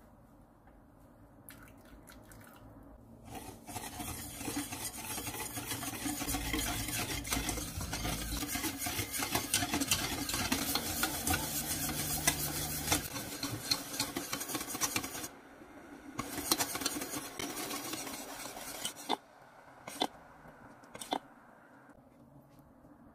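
Wire whisk beating a runny chocolate mixture in a stainless steel pot: a fast, steady scraping and clinking of the wires against the metal, pausing briefly about 15 seconds in and then going on for a few more seconds. Near the end come three sharp separate knocks.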